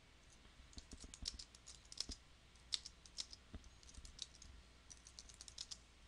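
Typing on a computer keyboard: a fast, irregular run of faint key clicks.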